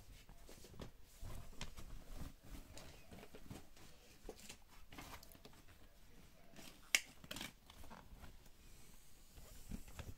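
Fabric rustling and soft handling knocks as a Mamas and Papas Strada pram hood is worked onto its frame, with a sharp plastic click about seven seconds in as a hood connector snaps into its mount.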